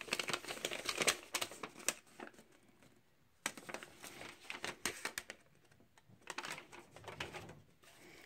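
Paper instruction leaflets and a small cardboard box being handled: rustling with short clicks and taps, pausing for about a second in the middle.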